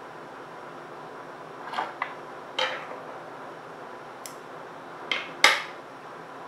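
Scissors handled and snipping at wrapping thread on a fishing rod: a handful of short metallic clicks and snips, the loudest about five and a half seconds in.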